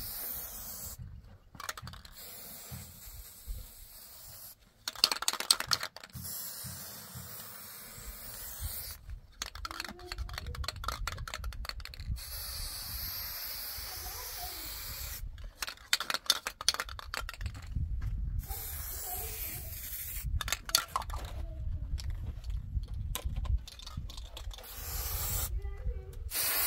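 Aerosol spray-paint can hissing in repeated bursts, some short and some held for a second or more, with pauses between.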